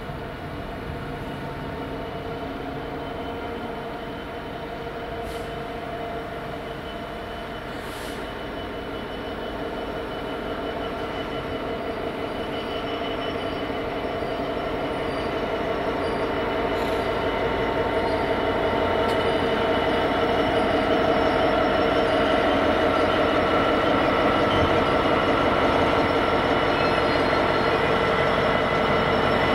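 GB Railfreight Class 66 diesel locomotive's two-stroke EMD V12 engine running as it approaches slowly with its train, growing steadily louder until it draws level. A steady high whine sits over the engine throughout.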